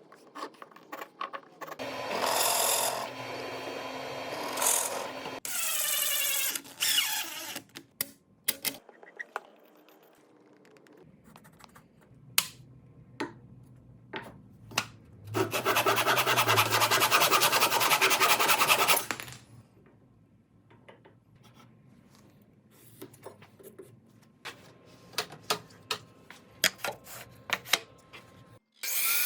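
Woodworking work sounds: a power tool running in three separate runs, the longest about four seconds, with scattered clicks and knocks of wood and tools being handled between them.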